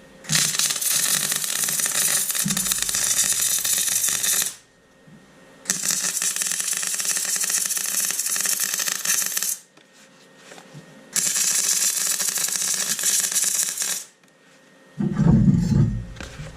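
MIG welder laying welds on steel horseshoes, crackling in three runs of about four seconds each with short pauses between. Near the end a low, uneven knocking or handling noise.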